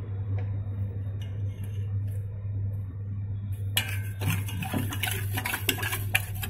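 A metal spoon in a metal pot: a few light clinks, then from about four seconds in, brisk stirring with steady scraping and clicking against the pot as flour is mixed into milk and sugar. A steady low hum runs underneath.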